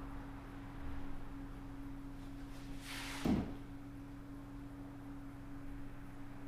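Espresso machine humming steadily, with one short knock about three seconds in.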